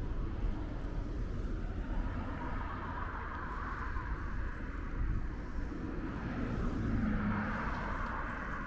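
Street traffic noise, steady, with a vehicle passing more loudly near the end.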